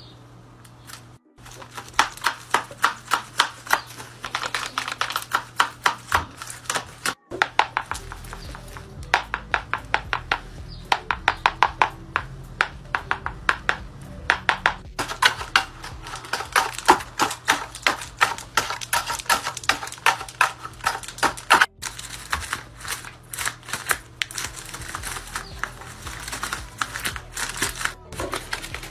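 Paper dragon hand puppets snapping their jaws shut again and again: quick runs of dry papery clacks, several a second, broken by a few short gaps as one puppet gives way to the next.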